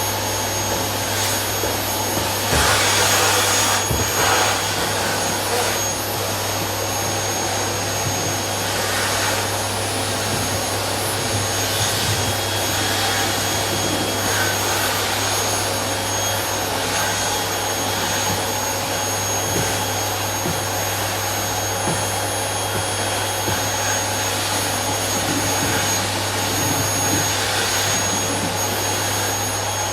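Household vacuum cleaner running steadily, a continuous whooshing hiss with a motor whine, briefly louder about three seconds in.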